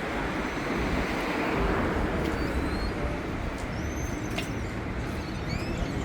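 Steady rumble of a road vehicle, with a few faint short high chirps about halfway through.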